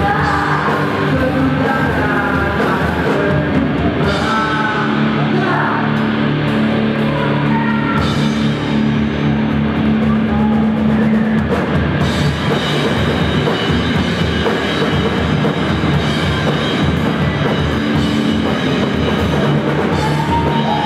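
A rock band playing loud and live: distorted electric guitars, bass and drum kit, with sung or shouted vocals in places.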